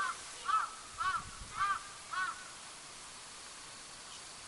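A crow cawing: a run of short calls about two a second that stops a little over two seconds in.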